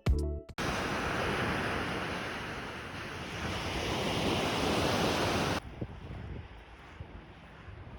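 Sea surf washing onto a beach, with wind on the microphone; the wash swells about four to five seconds in. After an abrupt cut, a quieter wash of waves continues.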